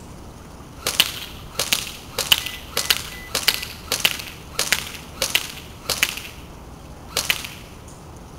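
Classic Army MP5A2 airsoft electric gun firing about ten single shots, roughly one every 0.6 seconds, with a longer pause before the last shot.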